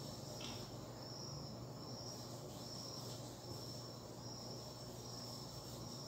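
A cricket chirping steadily: short, high-pitched trills repeating a little more than once a second, over a faint low hum.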